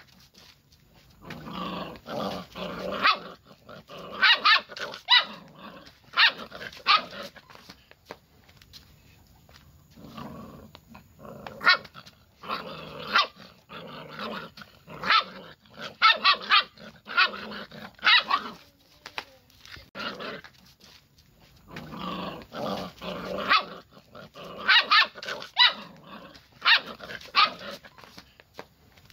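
Mongrel puppy barking and growling in bouts of a few seconds, with short quieter pauses between them.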